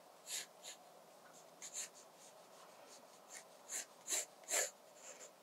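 Pencil scratching across watercolour sketchbook paper in a series of short, separate sketching strokes with brief pauses between them.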